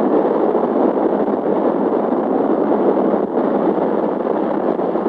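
Steady, loud engine noise heard from inside a military transport cabin, drowning out the voices of the people aboard.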